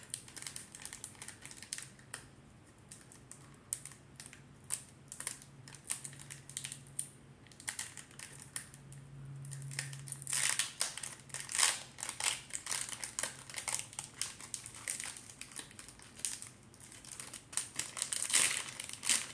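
Plastic wrapper of a Pokémon card pack crinkling and crackling as it is worked and torn open by hand, a hard-to-open pack; the crackling gets busier and louder about halfway through.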